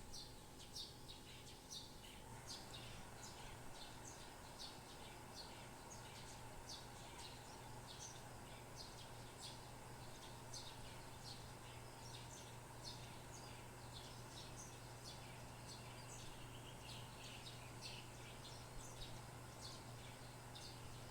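Birds chirping: short, high chirps repeating about twice a second, faint, over a steady low hum.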